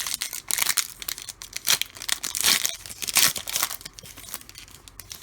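Foil trading-card pack being torn open and its wrapper crinkled by hand, an irregular run of crackling and tearing that is loudest in the middle and dies down near the end.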